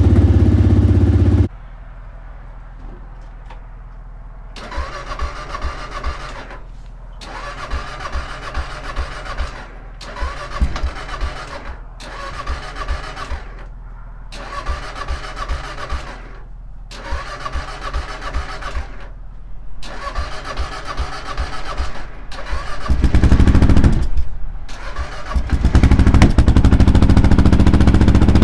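Carbureted Kawasaki KLR650 single-cylinder engine on a cold start near freezing. The electric starter cranks it in repeated bursts of a few seconds with short pauses between. Near the end the engine catches briefly and dies, then fires and keeps running loudly. A loud running engine is cut off abruptly about a second and a half in.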